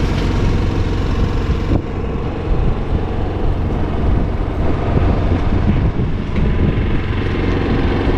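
A boat's engine running steadily under way, a constant low hum with a noisy wash over it.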